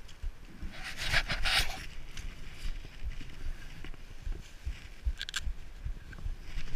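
A dog panting in a short burst about a second in. Scraping and rustling against the body-worn camera and low thumps of handling and wind run underneath.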